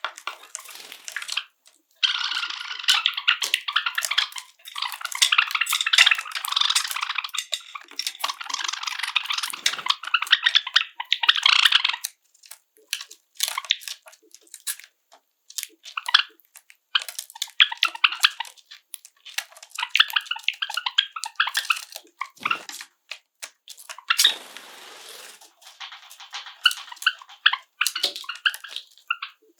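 Java sparrows singing, a rapid run of clicking, tinkling notes lasting about ten seconds, then shorter bouts of song later on, with scattered sharp clicks in between.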